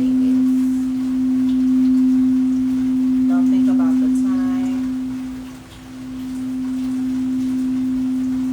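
Singing bowl sounding a single low, steady tone that swells and ebbs. It fades almost away about six seconds in, then swells back up.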